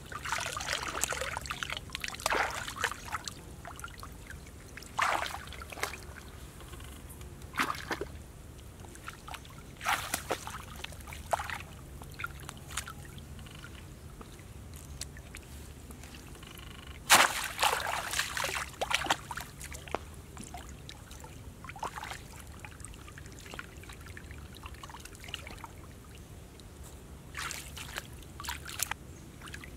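Shallow muddy water splashing and sloshing in irregular bursts as hands grope inside a bamboo plunge basket trap for fish. The biggest splashing comes about 17 seconds in.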